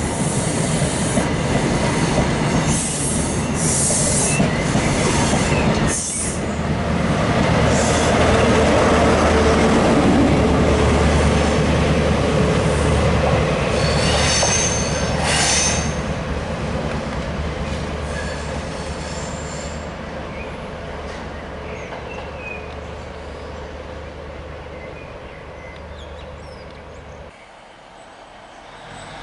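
CrossCountry InterCity 125 (HST) departing: Mark 3 coaches rolling past with short high wheel squeals, then the class 43 power car's diesel engine running loudly and fading into the distance as it pulls away, with another squeal of wheels on the way. The sound drops sharply near the end.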